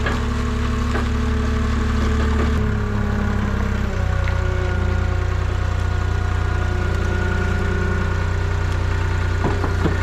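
Compact track loader's diesel engine running steadily, its note shifting a few seconds in as the machine moves. A few short metal knocks near the end as the loader's quick-attach coupler meets the firewood processor's mounting plate.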